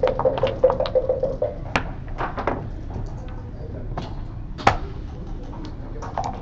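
Backgammon checkers being picked up and set down on the board: a run of light clicks and clacks, with two sharper knocks, one about two seconds in and one near five seconds.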